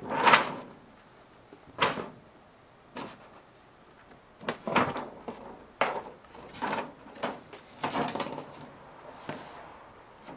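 A cat batting and pushing at a clear plastic sheet over a wooden shelf: short crinkling knocks and rustles at irregular intervals, the loudest right at the start.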